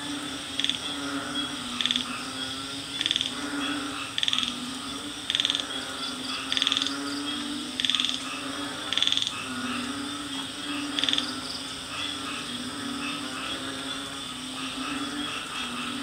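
Night chorus of frogs and other jungle animals. A short, loud call repeats about every second and a quarter, some nine times, and stops about eleven seconds in. Many smaller calls and a steady low drone run underneath.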